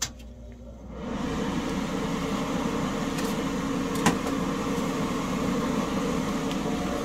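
A gas melting torch is lit and then burns with a steady rushing noise from about a second in, to melt a gold coin down into a button. A sharp click comes at the start and a single knock about four seconds in.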